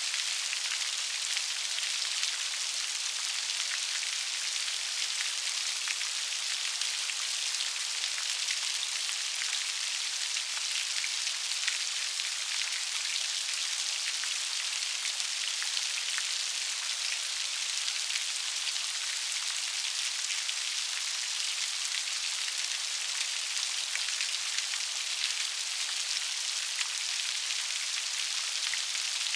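Steady rain falling, an even hiss dotted with many fine individual drop ticks.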